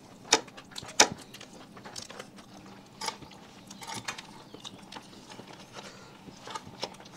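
Eating at a table: scattered small clicks and clinks of food, fingers and plates, with some chewing, over a faint steady low hum.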